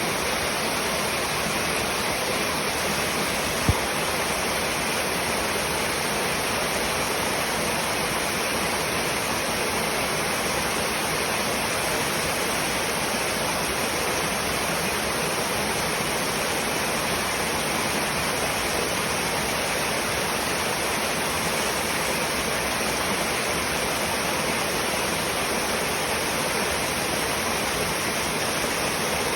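Waterfall: a steady, even rush of falling water that does not change. A single short sharp knock sounds once, about four seconds in.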